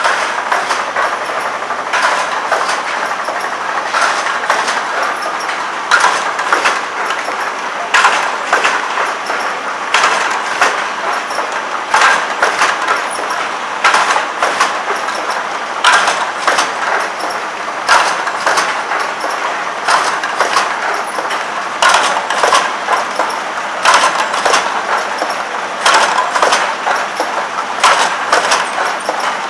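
Processed-cheese slicing line running: steady machine noise with a sharp clack about every two seconds and lighter clicks between, as the cheese is cut into slices.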